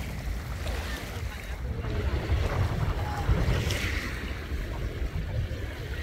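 Wind buffeting the microphone in uneven low gusts over the hiss of sea waves washing ashore, with one louder wash a little past the middle.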